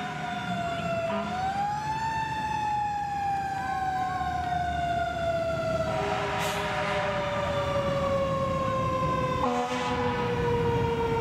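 Fire truck's mechanical siren winding up briefly, then slowly winding down in one long falling wail over a running engine. Two short hisses sound about six and ten seconds in.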